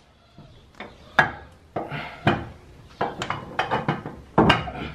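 Metal clinks and knocks of a car's drive axle and suspension parts being handled and set into place: a dozen or so irregular sharp strikes, the loudest cluster near the end.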